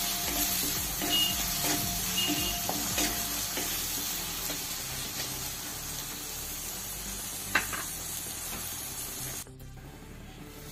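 Chopped tomatoes and spice masala sizzling in hot mustard oil in an aluminium kadhai, stirred with a wooden spatula scraping the pan. Near the end the sizzling drops suddenly to a fainter hiss.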